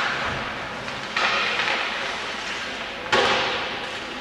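On-ice sounds of an ice hockey game in a rink: two sudden sharp hits, about a second in and about three seconds in, each trailing off into a hissing scrape that fades over about a second, over a steady rink hum.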